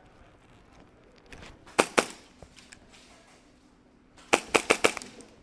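Airsoft guns firing: two shots close together near two seconds in, then a quick string of about five shots near the end.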